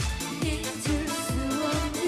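A woman singing a Korean pop song into a microphone over an amplified band arrangement with a steady dance beat of about four drum hits a second; she holds a wavering note near the end.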